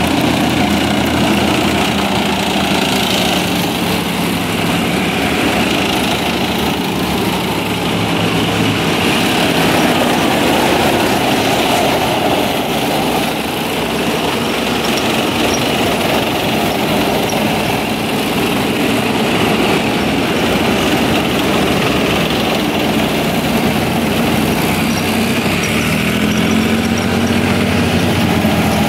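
Main battle tanks driving past in a column, their engines running steadily and heavily. Near the end a fresh engine note rises in pitch as the next tank comes on.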